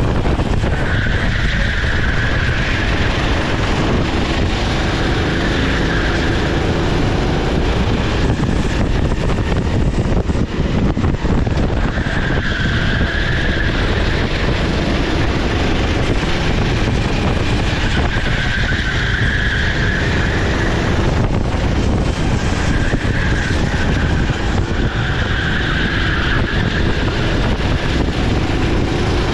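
Sodi SR4 390cc rental kart's four-stroke single-cylinder engine running at race pace on track, under a steady, loud rush of noise. A higher engine note swells and fades every few seconds through the lap.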